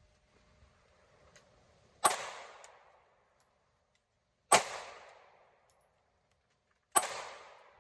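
Three single gunshots about two and a half seconds apart, each cracking sharply and then dying away over most of a second.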